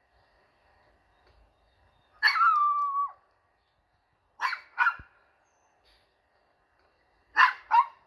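Small Yorkshire terrier-type dog barking: one drawn-out bark about two seconds in, holding one pitch and dropping off at the end, then two quick pairs of short barks.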